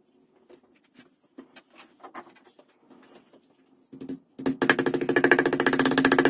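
Wooden mallet pounding the fold of a piece of vegetable-tanned leather, a loud, fast, even run of knocks starting about four and a half seconds in and lasting almost two seconds. Before it, only light taps and handling of the leather on the bench.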